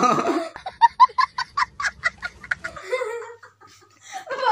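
A woman laughing hard in a rapid cackle of short ha-ha bursts, about six a second, for about two seconds before trailing off.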